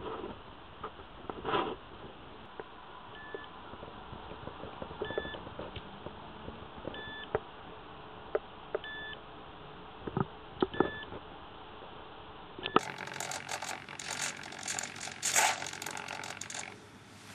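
A short electronic beep, sounding two tones at once, repeats about every two seconds from an RC model's onboard electronics. About two-thirds of the way through it gives way to dense, irregular clicking and rustling.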